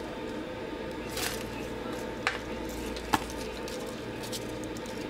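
Hands laying spinach leaves onto open sandwiches on a foam plate: soft rustling with a few short taps, over a steady low hum.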